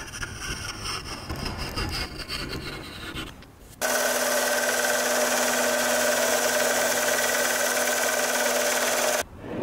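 Hand sawing and rasping on wood for about three seconds, then a small vertical belt sander runs steadily for about five seconds, starting and cutting off abruptly, as a piece is held to the sanding belt.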